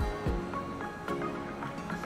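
Background music: held tones with a deep beat about every two seconds.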